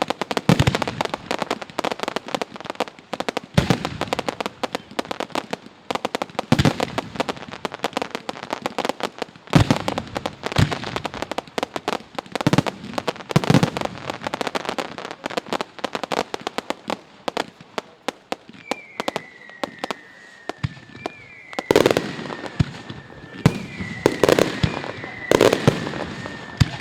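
Fireworks display: dense rapid crackling and bangs, with deeper booms of bursting shells every second or two. In the last third, high whistling tones that fall slightly in pitch sound again and again over the bangs.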